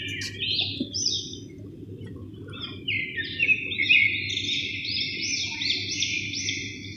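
Birds chirping over and over in quick, high calls, over the low, steady bubbling of samosas deep-frying in oil.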